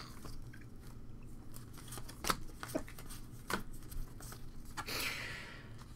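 A stack of Pokémon trading cards being handled and flipped through: soft card-on-card sliding, a few sharp taps as the cards are knocked square, and a brushing swish about five seconds in.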